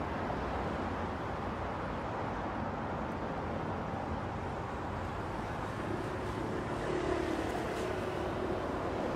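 Steady road and engine noise inside a moving car's cabin, tyres running on tarmac at road speed. A faint low hum comes in about six seconds in.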